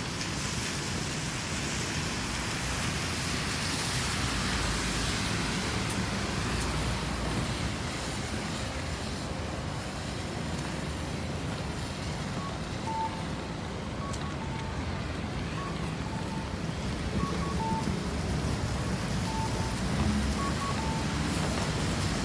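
City street traffic noise: cars passing in a steady hiss. From about halfway through, a repeating electronic beep alternates between two pitches above it.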